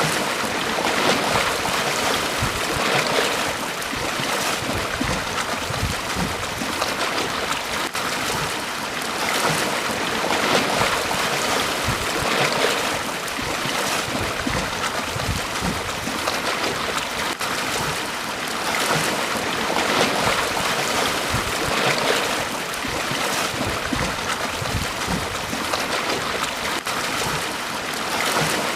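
Small waves breaking and washing up a beach: a continuous rush of surf that swells and eases every few seconds.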